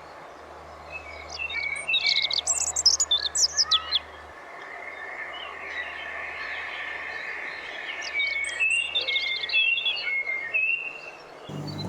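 Songbirds singing outdoors: a quick burst of high twittering chirps, then after a pause a run of short whistled notes. Piano music starts just before the end.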